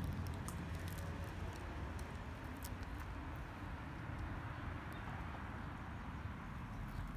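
Steady outdoor background rumble with scattered faint clicks and ticks; the low rumble is strongest at the start and eases off.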